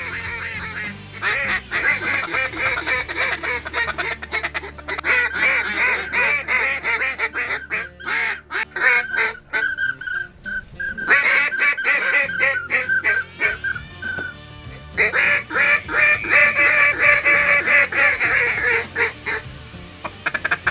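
Several hunters blowing waterfowl calls together: fast, chattering runs of quacking, honk-like notes overlapping, with a short lull about halfway through before the calling picks up again.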